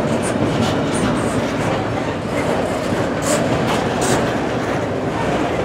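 Freight cars of a full CSX freight train rolling past: a steady rumble of steel wheels on rail, with a few short, sharp high-pitched sounds from the wheels.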